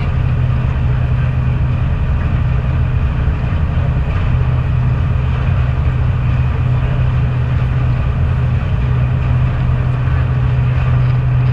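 Jet boat's engine running steadily at low cruising speed, a constant low drone with no change in pitch.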